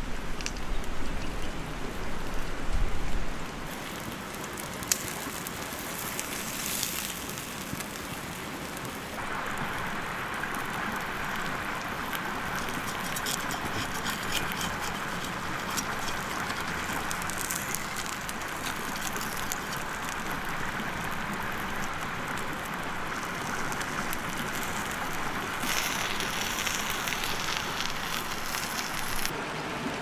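Egg and vegetables sizzling on a hot stone over a campfire: a steady rain-like hiss that grows stronger about nine seconds in, with low rumbling in the first few seconds.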